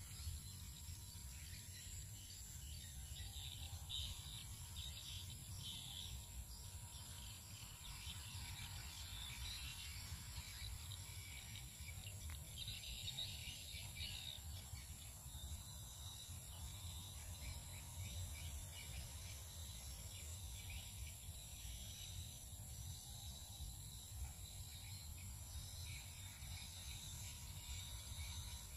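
Faint outdoor ambience of insects chirring steadily, with louder bursts of chirring twice early on, over a steady low rumble.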